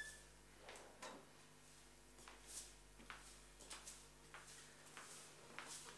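Faint, scattered light clicks and knocks, a couple a second: a door being opened and coffee cups rattling on a serving tray as it is carried.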